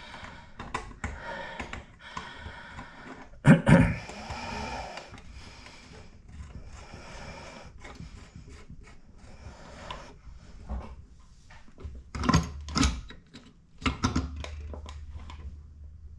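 Work and handling noises in a small bathroom: scattered knocks and clatters, with a sharp loud knock about three and a half seconds in and another cluster of knocks near the end.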